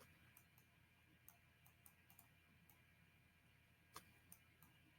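Near silence with a handful of faint, irregular light clicks.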